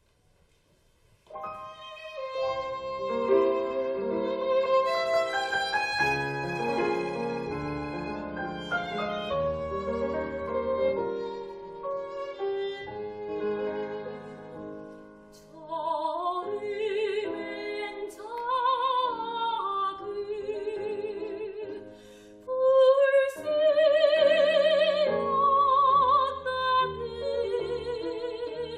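Korean art song for soprano, violin and piano, performed in classical style. The music starts about a second in, and from about halfway a melody with wide vibrato takes the lead.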